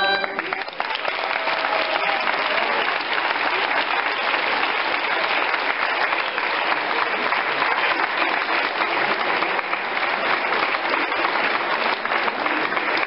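Audience applauding steadily, the clapping taking over just as a choir's last sung chord stops at the start.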